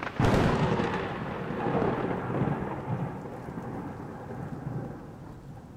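A sudden loud thunder-like boom about a quarter second in, followed by a long rumble that slowly fades away.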